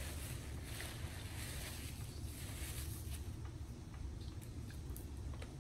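Paper napkin rustling and crinkling as it is unfolded and handled, in swells over the first three seconds, followed by a few light clicks as a plastic drink bottle is picked up. A steady low hum runs underneath.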